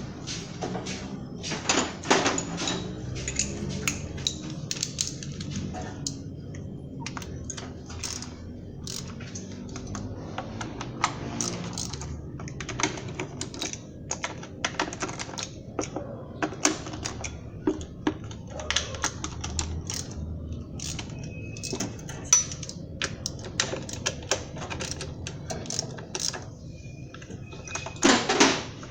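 Hand tools clicking and clinking on metal in quick, irregular strokes, with a few louder clusters of clatter, over a low steady hum.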